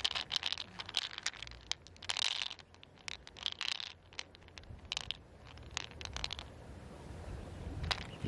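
Pearls clicking and clinking against each other and the shell as a hand rolls and stirs them in an opened mussel shell, in irregular clusters of small hard clicks. There is one more sharp click near the end.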